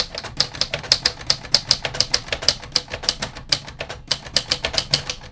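Royal Sabre manual typewriter being typed on quickly: a steady run of sharp key clacks, several a second, as the typebars strike, with the ribbon selector set to stencil.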